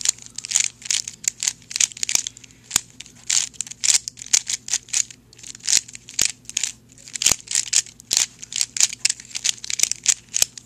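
Plastic 3x3 Rubik's Cube layers being turned quickly by hand, an irregular run of sharp clicks and clacks, several a second, as the cube is scrambled.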